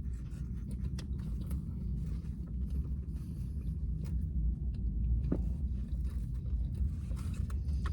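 A person chewing a taco close to the microphone, with small scattered mouth clicks over a steady low rumble.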